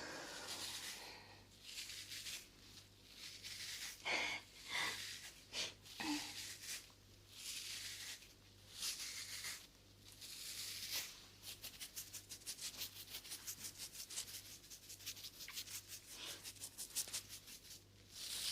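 Close-miked ASMR rubbing and brushing strokes. About two-thirds of the way in they give way to a quick, even run of light scratching strokes, roughly ten a second, lasting several seconds.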